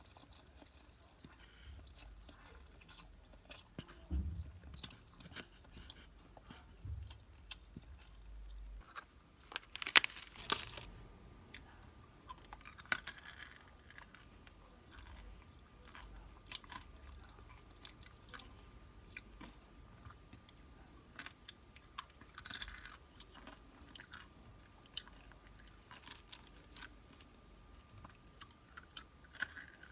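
Close-up chewing and crunching of snacks: a run of small crisp crunches, with one loud crunching bite about a third of the way through.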